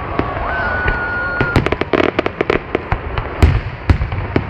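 Fireworks display: a rapid, irregular run of sharp bangs and crackles, the loudest pair near the end. A thin high whistle holds for about a second early in the run.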